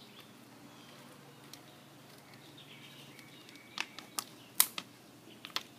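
Plastic screw cap being twisted onto a soda bottle: quiet at first, then a handful of sharp plastic clicks and crackles about four seconds in.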